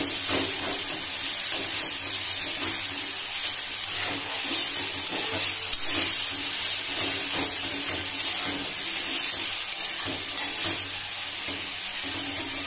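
Drumstick (moringa) leaves sizzling in oil in a steel wok with a steady hiss, while a spatula stirs and scrapes them around the pan in irregular strokes.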